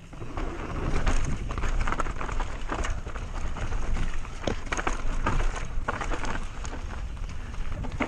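Mountain bike descending a dirt singletrack, heard from a camera on the bike or rider: wind rumbling on the microphone and tyres rolling, with frequent clicks and knocks as the bike rattles over bumps.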